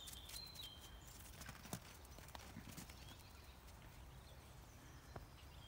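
Near silence: outdoor quiet with a few faint, scattered soft clicks or crunches.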